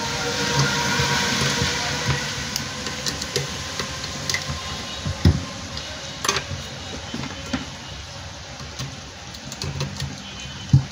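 Scattered clicks and taps of wires and a screwdriver handled at a screw-terminal block of a solar charge controller, as battery leads are fitted. The sharpest clicks come about six seconds in and just before the end, over a steady hum and hiss.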